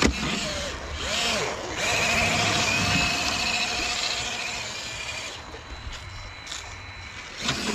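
Small electric motor of an RC crawler whining under load, with a wavering pitch that swells and then fades off.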